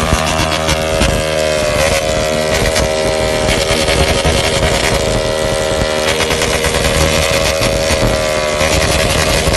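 160 cc single-cylinder motorcycle engine revved hard and held against its rev limiter, the pitch staying high with brief dips about a second in, about two seconds in, around six seconds in and near the end before it climbs straight back.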